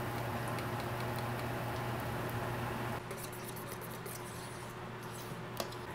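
Oat pancake batter sizzling faintly in coconut oil in a nonstick pan, a soft hiss with small crackles and pops over a steady low hum. The sound drops a little about halfway through, and a single click comes near the end.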